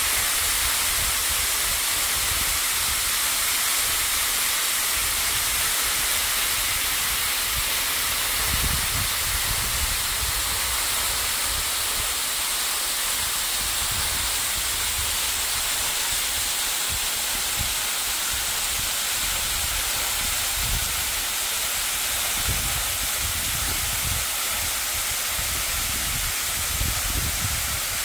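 Waimoku Falls, a tall waterfall, pouring down a rock face into a shallow pool. It makes a steady rushing hiss, with irregular low rumbles underneath.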